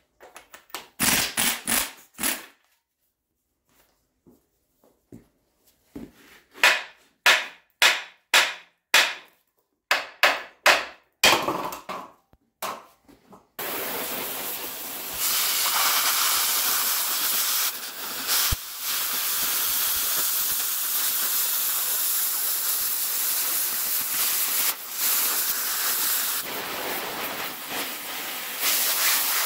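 Pneumatic impact wrench firing in short bursts, a few at first and then a quick run of about a dozen. From about 13 seconds in, an oxy-fuel cutting torch hisses steadily as it cuts brackets off the Jeep axle.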